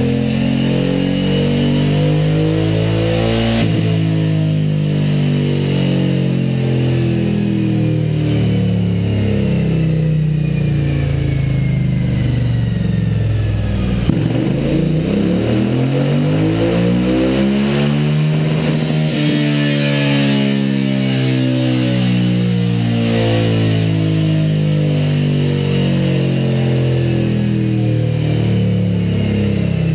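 Suzuki V-Strom 1000's 90-degree V-twin running through a Scorpion Serket Parallel slip-on exhaust on a dyno. The revs rise and fall, drop to a low point about halfway through and then climb again, with a faint high whine that slides down in pitch as the revs come down.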